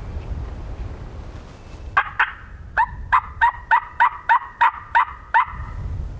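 A run of turkey yelps, a steady series of about three sharp two-pitched notes a second after two opening notes, with wind rumbling on the microphone before and after.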